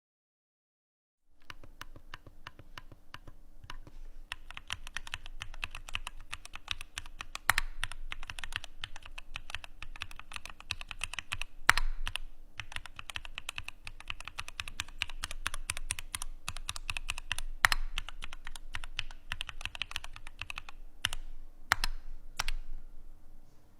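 Fast typing on a Keychron Q8 Alice-layout mechanical keyboard with an aluminium case, a dense patter of key clicks with a few louder single strokes standing out. It starts about a second in and stops shortly before the end.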